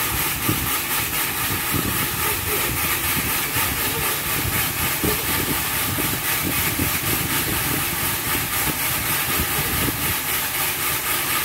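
Cleaning equipment running steadily: a constant hiss over an uneven low rumble.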